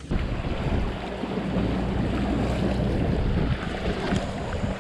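A motorboat under way: an engine's steady low drone with water rushing along the hull and wind buffeting the microphone, starting abruptly.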